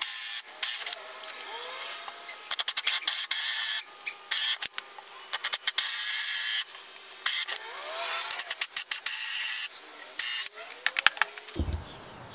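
Cordless drill driving a hole saw into a plywood panel, cutting bird entrance holes only partway through. It runs in short stop-start bursts and longer runs of about a second, with a hissing cutting noise and the odd faint squeal.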